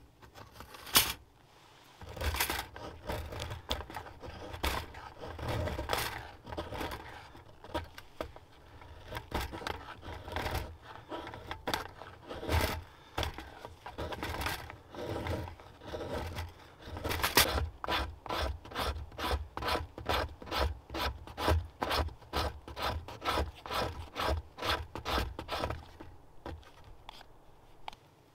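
Knife blade shaving thin curls off a wooden stick to make tinder shavings: repeated scraping strokes, uneven at first, then quick and regular at about two to three a second for the last several seconds before they stop. A couple of sharp clicks come right at the start.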